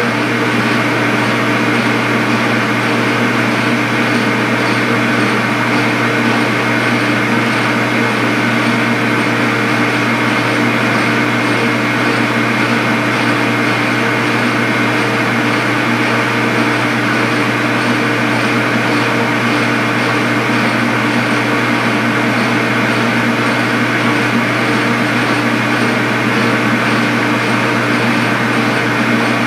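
Metal lathe running steadily while its tool takes a facing cut across the end of a bronze bar: a constant machine hum and whine with several steady tones.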